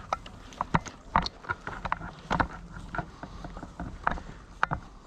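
Irregular clicks, knocks and rustles of a player moving on foot through brush with his gear rattling.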